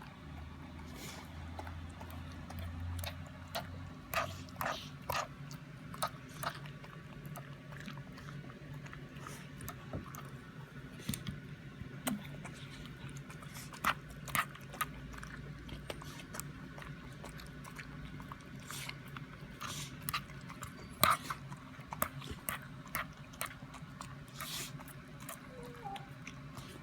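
A 16-year-old corgi chewing and crunching food, with irregular sharp crunches, some a second or so apart, others in quick clusters, over a faint steady hum.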